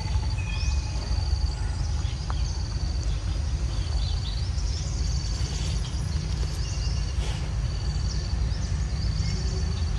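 Outdoor forest ambience: a steady low rumble, with short, high-pitched pulsing trills repeating about once a second and a few brief chirps of insects and birds.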